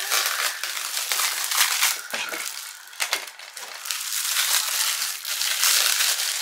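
Plastic and card packaging of a tempered-glass screen protector crinkling and crackling as it is handled and opened, with a couple of sharper snaps a little after two and three seconds in.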